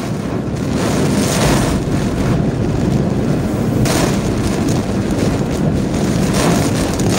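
Hurricane-force eyewall wind and driving rain: a loud, steady rush of noise that swells over the first second.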